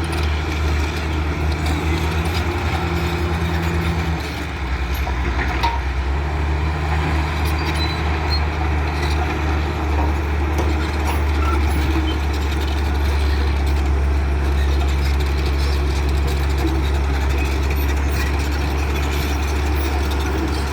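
Heavy diesel construction machinery running with a steady low drone. The engine note drops and shifts about four seconds in, with a few knocks over it.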